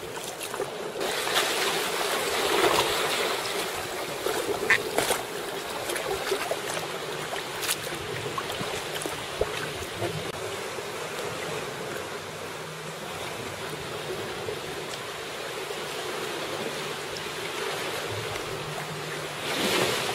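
Sea water sloshing and lapping around a sea kayak's hull, with a few short splashes from paddle strokes and a louder surge of swell near the end.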